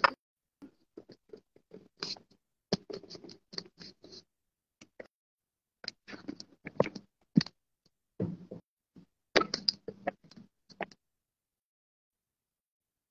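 Handling noise from a sketchbook and its camera being moved about: irregular rustles, scrapes and light knocks, with one sharper knock at the start.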